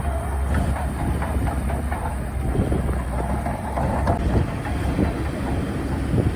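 Heavy diesel engine of a crawler bulldozer running, with repeated metallic clanks and knocks from its tracks and blade as it pushes sand.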